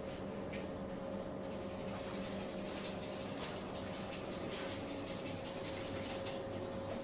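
Hands massaging skin: a quick, continuous run of soft rubbing strokes that starts about a second and a half in, over a steady electrical hum.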